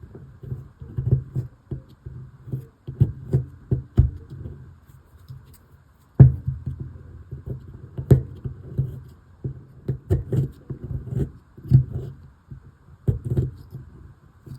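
Tools knocking and scraping at a plaster dig block, an irregular run of short taps and scrapes with one sharper knock about six seconds in.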